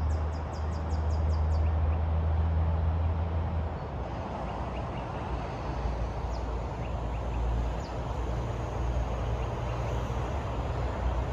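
Wind rumbling on the microphone and tyre noise while riding a bicycle along a paved path. A quick run of high ticks, about four a second, comes near the start.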